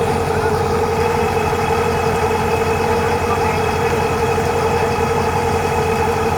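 Engine running steadily at a constant speed, a loud, even drone with no change in pitch.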